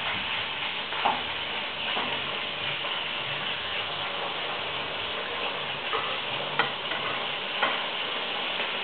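Steak sizzling in hot oil in a frying pan, a steady crackling hiss with a few short knocks.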